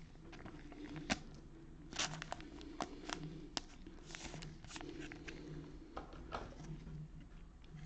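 Trading cards being handled: faint rustling with scattered light clicks and taps.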